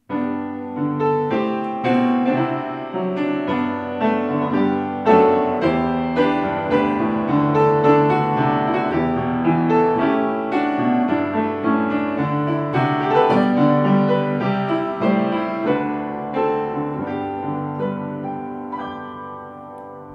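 Keyboard playing a slow instrumental of chords and melody, starting suddenly and fading toward the end.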